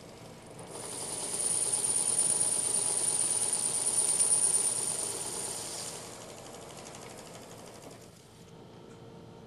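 Metal lathe cutting the outer edge of a metal disc. The tool bites in about a second in, and the cut runs loud with a steady high-pitched whine over the lathe's running noise. It eases off around six seconds in, leaving the lathe turning quietly.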